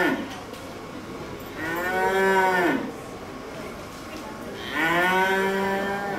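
Two long cow moos about three seconds apart, each lasting over a second and rising in pitch.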